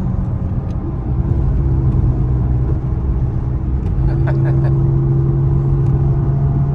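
2002 Lexus IS300's inline-six engine running, its steady note stepping up in pitch about a second in and again about four seconds in.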